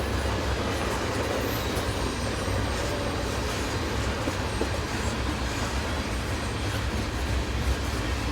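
Freight train cars rolling past with a steady rumble of wheels on rail.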